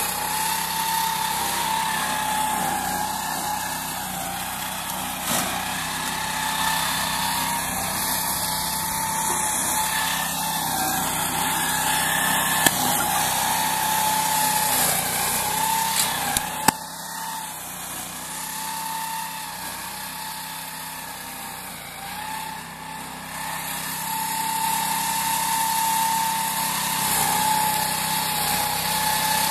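Small engine of a walk-behind grass mower with a chain-flail shredder, running steadily under load as it cuts and shreds tall grass, its pitch wavering slightly. A couple of sharp knocks roughly halfway through.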